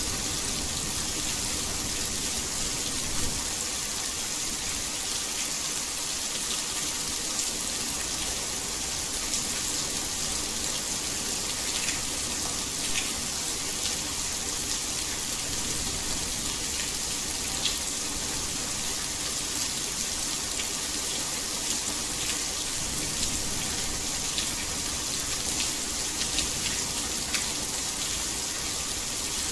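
Steady heavy rain: a dense, even hiss with scattered louder individual drop hits.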